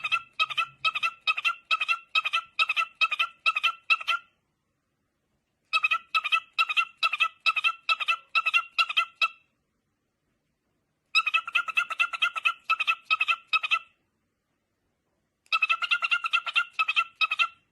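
A bird calling in runs of short, evenly spaced notes on the same pitch, about three a second, in four runs with pauses between them.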